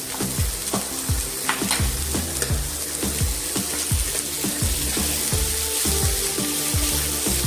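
Shallots, onion and tomato sizzling as they fry in a nonstick pan, stirred with a plastic spatula. Background music with a steady low beat plays over it.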